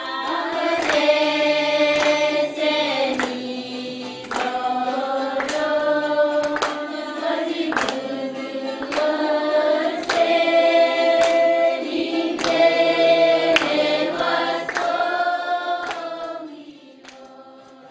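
Group singing in long held notes, like a choir, over a steady beat of sharp taps. It fades down near the end.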